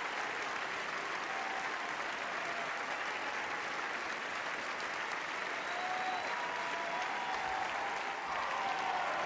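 Large audience applauding steadily, a dense even clapping, with a few faint voices calling out in the second half.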